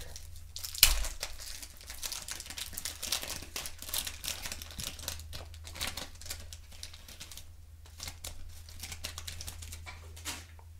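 Wax-paper wrapper of a 1991 Topps baseball card pack ripped open with one sharp tear about a second in, then crinkling steadily as the cards are pulled out of it. The crinkling fades to quieter rustling near the end.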